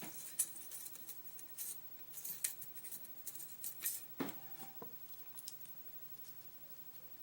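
Small metallic clicks and light scrapes as a pin-tumbler lock is worked apart with a shim. They are thickest in the first few seconds, with one sharper click a little after four seconds, then they die down.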